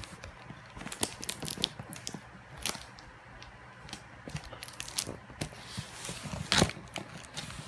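Plastic and cardboard toy packaging being worked open by hand: irregular crackles, crunches and clicks, with one louder crunch near the end.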